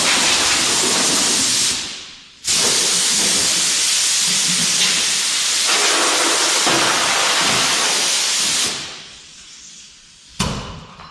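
Compressed-air blow gun hissing in long blasts, blowing dust out of shop equipment. It stops briefly about two seconds in, starts again, and trails off near the end, followed by a sharp knock.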